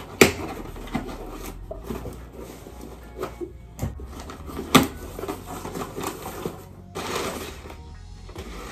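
Scissors cutting through the packing tape of a cardboard box, then the box flaps pulled open and packing paper rustling, with a few sharp clicks and taps along the way.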